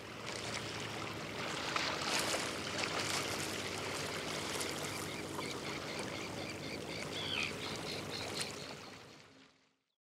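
Outdoor ambience: a steady wash of noise with a bird calling in short repeated chirps through the middle. It fades out near the end.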